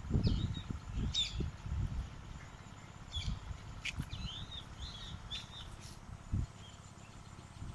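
Small birds chirping: a scatter of short chirps and curling calls, busiest from about three to six seconds in, over a low rumble on the microphone in the first two seconds.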